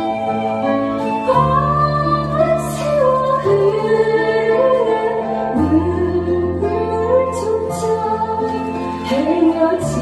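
A woman singing a Korean trot song into a microphone over instrumental accompaniment with sustained bass and chords.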